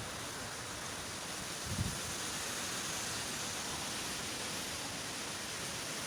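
Nor'wester storm wind blowing steadily, a continuous rushing hiss, with a brief low thump about two seconds in.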